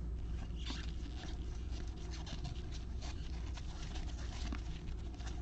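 Football trading cards being slid and flipped through a stack by gloved hands: a run of light clicks and rustles over a steady low hum.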